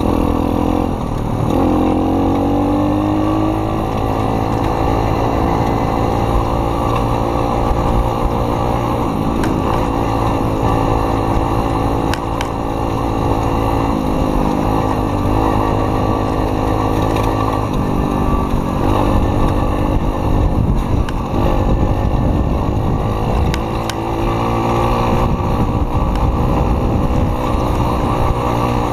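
Motocross bike engine running while the bike is ridden along a dirt track. Its pitch rises over the first few seconds as it picks up speed, then holds fairly steady with small rises and dips as the throttle changes.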